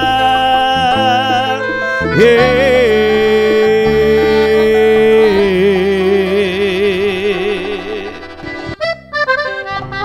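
Live cumbia band led by a piano accordion playing long held notes, some with a wavering shake, over keyboard and bass, with no singing. The music thins out and briefly drops away near the end, then the band comes back in.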